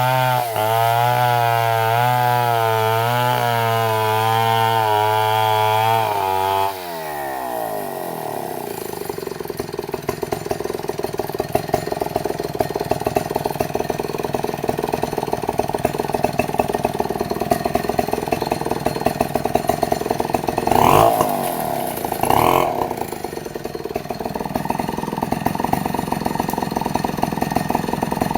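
Stihl MS 250 two-stroke chainsaw running at full throttle for about the first seven seconds, its pitch wavering as it rips through a log. The throttle is then released and the engine drops to a fast-popping idle, with two short revs near the middle of the idle.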